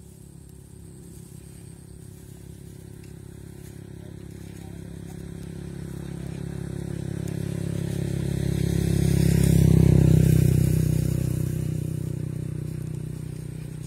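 A motor vehicle passing by: its engine hum grows steadily louder for about ten seconds, peaks, then fades away.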